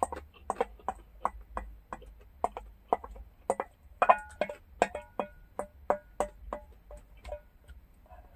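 Wooden spoon scraping and knocking against a stainless steel bowl while scooping food, about three sharp knocks a second, some leaving a short metallic ring. The knocks stop shortly before the end.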